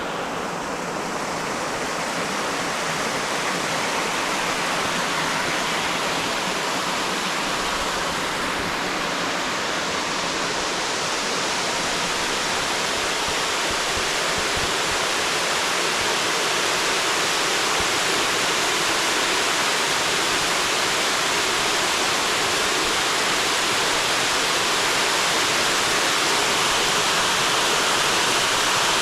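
Waterfall rushing steadily: a dense, even hiss of falling water that grows gradually louder.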